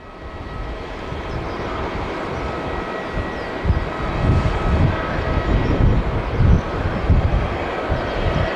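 Boeing 767-300ER's jet engines running, a steady roar with faint whining tones. From about halfway in, irregular low rumbles come and go.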